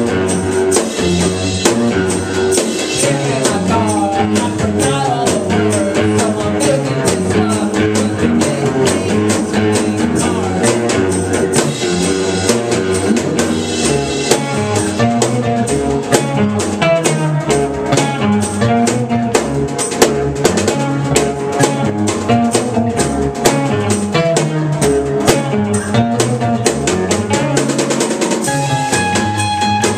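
Live rock band playing: a drum kit keeps a steady beat, with snare rimshots and bass drum, under strummed guitars.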